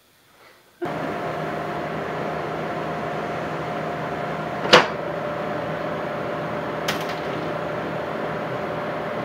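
TIG welding arc on a tubular frame joint: a steady hum and hiss that cuts in about a second in, with one sharp click a little past the middle.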